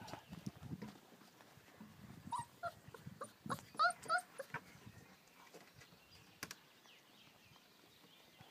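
American Akita puppies playing, giving a handful of short high whimpers and yips between about two and four seconds in, amid soft scuffling.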